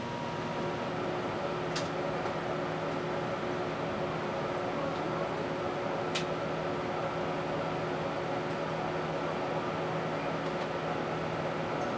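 Steady cabin noise inside an Airbus A380 climbing after takeoff: the hum and rush of the jet engines and airflow, with a few faint steady tones under it. Two brief clicks sound, about two seconds and six seconds in.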